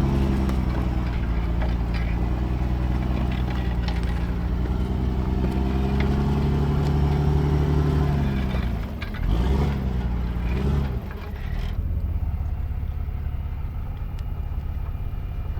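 Truck engine running steadily, its pitch dipping and then rising briefly about nine to ten seconds in. It then changes to a lower, rougher rumble for the rest of the time.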